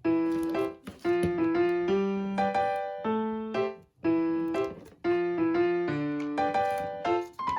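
Background music: a keyboard melody of short, plucked-sounding piano-like notes in brief phrases, with short pauses between the phrases.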